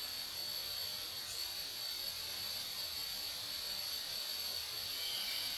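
Steady high hiss with a constant thin high-pitched tone running through it and no distinct events.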